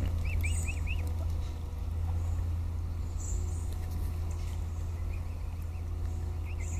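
A steady low rumble, with a small bird's quick run of about four chirps, each rising and falling, just after the start and again at the very end.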